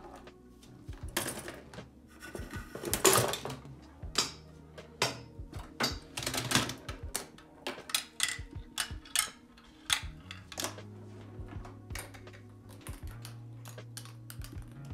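Irregular run of clicks, knocks and rattles from a Rube Goldberg machine of K'nex parts, Hot Wheels track and wooden blocks as balls roll and drop and pieces tip and strike one another. There is a longer, louder rattle about three seconds in, and a low steady hum sets in about ten seconds in.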